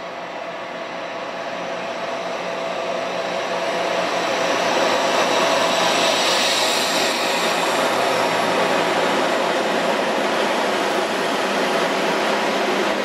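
German freight train passing close by, hauled by a red Deutsche Bahn diesel locomotive. Its running noise grows louder over the first five seconds as it draws level, then holds steady as the train goes by.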